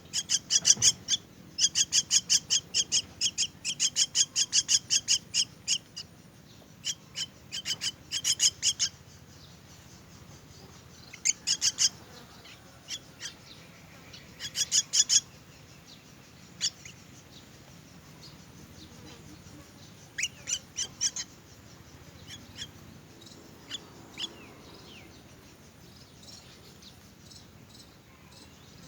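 Myna chicks in the nest begging for food: rapid trains of sharp, high chirping calls at several a second. The calls run loudest over the first six seconds, then come in shorter bouts with pauses between them.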